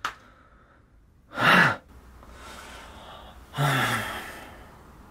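A man's short, breathy gasp about a second and a half in, then a longer sigh with a falling pitch about two seconds later.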